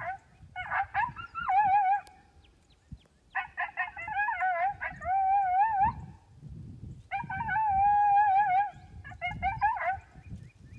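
Several canines howling and yipping in bouts. Quick short yips run into long howls with a quavering, wobbling pitch, and more than one voice overlaps.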